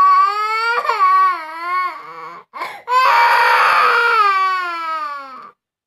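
Toddler crying in long wails: a first wavering wail, a quick gasping breath, then a second, rougher wail that falls in pitch as it fades out.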